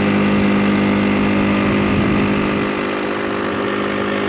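Small boat's motor running at a steady pitch, with a noisy rush of wind and water behind it.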